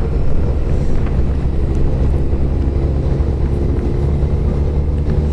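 Motorcycle running steadily at road speed, its engine hum under wind and tyre noise on a wet road.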